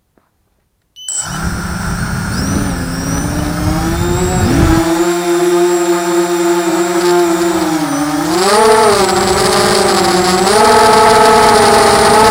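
Motors and propellers of a ZMR 250 FPV racing quadcopter whine into life about a second in. Their pitch holds, then rises and falls with the throttle, and the sound gets louder toward the end.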